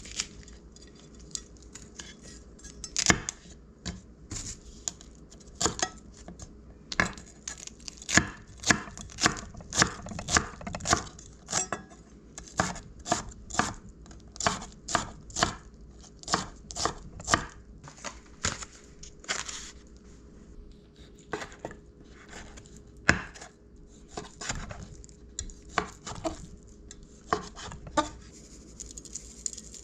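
Kitchen utensils knocking against a cutting board or cookware, a long irregular run of sharp strokes, about one to two a second and thickest in the middle.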